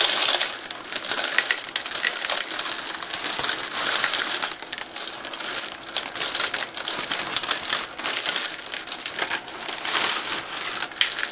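Brass rifle casings poured by the handful from a plastic bag into a tumbler bowl, clinking and rattling against each other in a dense, uneven stream of metallic clicks as they land on corn cob media.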